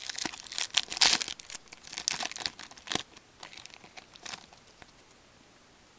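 Trading card pack wrappers crinkling and tearing as a pack is opened by hand: a run of quick rustles for about four seconds, trailing off to a few faint ones near the end.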